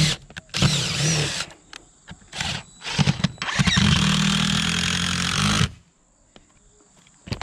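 DeWalt cordless impact driver driving screws through a steel chimney support bracket into the roof deck: a short run, then a longer one of about three seconds, the motor's pitch rising as each run starts. It stops about two-thirds of the way through, and a single click follows near the end.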